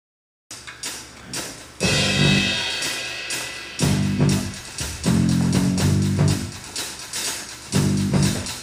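Live band music starting about half a second in: drum kit beat and bass with guitar, backing a haegeum (Korean two-string bowed fiddle) in a bouncy pop arrangement.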